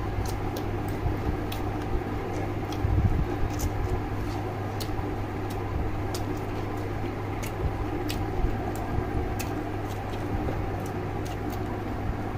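Close-up chewing and lip-smacking on boiled chicken, with irregular small wet clicks, over a steady low hum.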